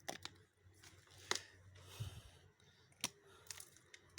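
Moonstones being handled, clicking sharply against each other a few times, with a short soft rustle about two seconds in.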